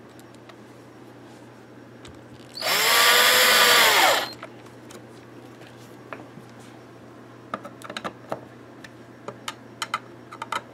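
Power drill run in one short burst of about a second and a half, its motor speeding up and then slowing down. Near the end, scattered light clicks and taps.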